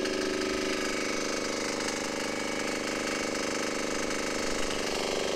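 Small 168F single-cylinder diesel engine running steadily, driving a log splitter's hydraulic pump.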